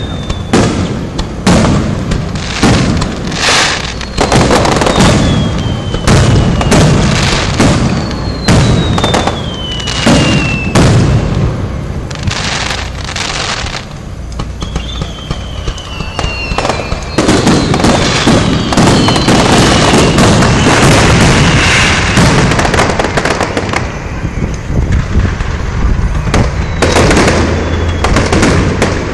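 Fireworks display: aerial shells bursting in a run of bangs, several with a thin whistle that falls in pitch. Partway through the bursts merge into a dense barrage.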